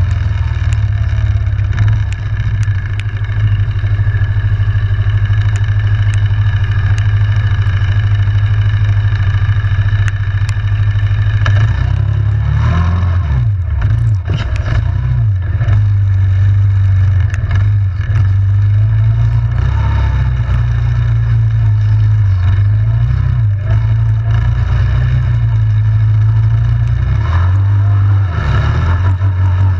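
ATV engine running steadily under throttle. Its pitch dips and comes back up twice, in the middle and near the end, as the throttle is eased and reapplied.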